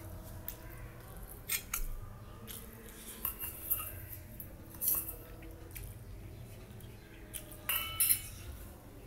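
A steel spoon clinking and scraping against a stainless steel bowl several times. The loudest strikes come near the end and ring briefly.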